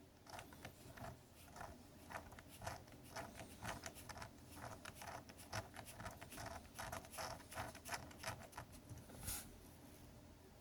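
3D-printed plastic differential gear model turning, its gear teeth clicking irregularly at several clicks a second, with one brief rustle near the end.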